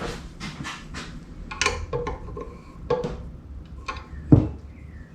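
Metal clinks and taps from handling bike frame parts and an Allen key, several of them ringing briefly, with a heavier thump about four seconds in.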